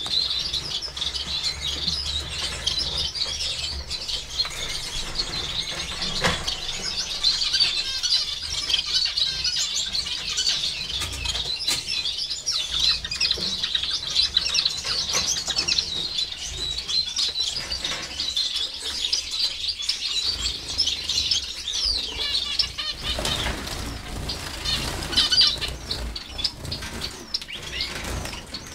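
A room of caged finches, zebra finches among them, chirping and calling without pause, many short high calls overlapping into a steady chatter.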